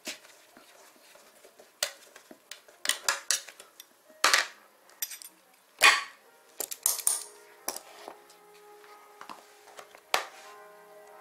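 Metal hand tools and loose bolts clinking and clattering as they are handled and set down in a plastic parts tray: a run of sharp clinks, the loudest about four and six seconds in.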